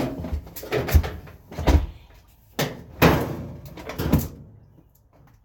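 A dryer vent tube being pushed and fitted back into place: about five knocks and thumps with some scraping.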